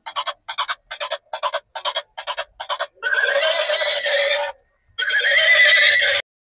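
Electronic sound effects from a battery-powered light-up toy car. About seven short chirps come in quick succession, followed by two longer warbling animal-like calls.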